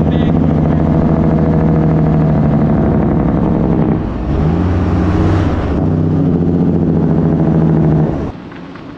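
Diesel semi-truck engine running as the truck drives, heard from the open cab window beside its chrome exhaust stack. The steady engine note dips about four seconds in and climbs again, then cuts off suddenly near the end.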